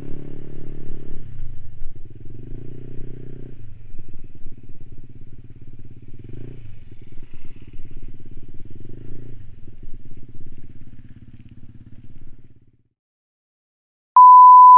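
Motor scooter engine running at low speed, its pitch rising and falling several times as the throttle is opened and eased, then dying away. After a brief silence a loud, steady, high-pitched beep starts near the end.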